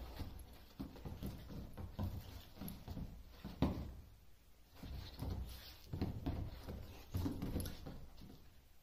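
Toy poodle scrabbling and pouncing on a leather sofa: irregular soft thumps and scuffs of paws and body on the cushions. There is a louder thump about three and a half seconds in and a short lull after it, then the thumping starts again.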